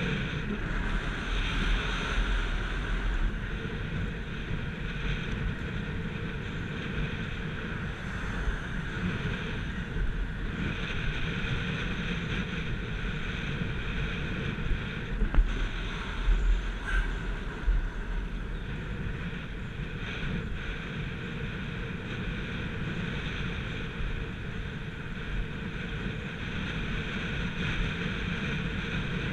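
Wind rushing over the microphone of a camera on a road bicycle descending at speed, a steady noise with gusts of low buffeting, the heaviest about halfway through.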